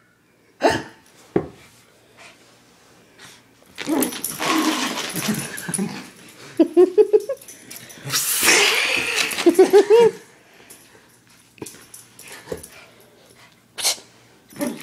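Small chug dog (chihuahua-pug mix) making breathy, noisy vocal sounds in two long bouts, one about four seconds in and one about eight seconds in, with short pitched bits in them. Two sharp knocks come in the first second and a half.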